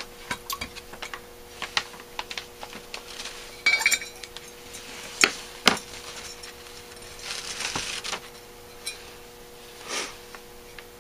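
Small metal parts of a Rochester B carburetor clicking and clinking as the accelerator pump check-ball retainer T and its spring are worked into the casting by hand with a small screwdriver. Scattered light clicks, two sharper ones a little past halfway, and a short scraping sound about two-thirds through.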